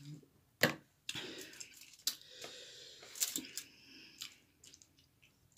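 Close-up eating sounds: wet chewing and mouth clicks as spicy chicken wings are eaten, with a sharp click about half a second in.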